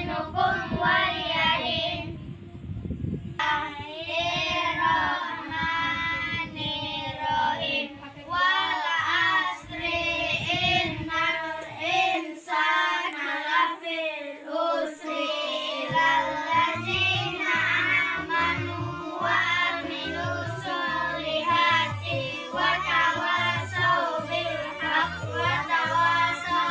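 A song with a child's singing voice over music, a steady beat coming in about halfway through.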